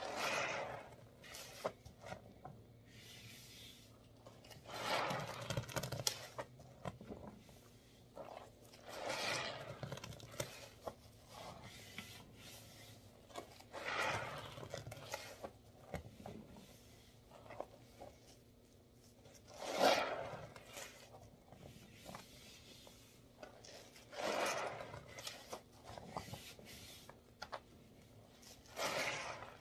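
Gloved hands squeezing and kneading wet, foamy Gain laundry-detergent paste in a plastic tub. Each squeeze gives a wet squish that swells and fades, about every four to five seconds, with quieter rubbing in between.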